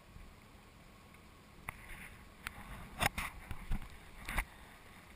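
Water lapping against the side of a small boat on calm water, with a few sharp knocks and splashes against the hull starting a little under two seconds in.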